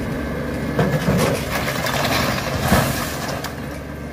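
Compact tractor engine running steadily, with irregular clattering and knocks of bricks and debris in the middle, loudest about a second in and again near three seconds in.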